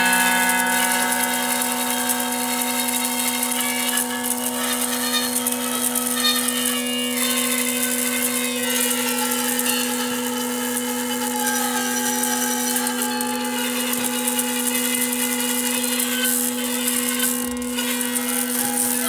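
Autoharp strings set going by servo motors and chopsticks. One steady held tone sounds under a dense, rapid, motor-like rattle.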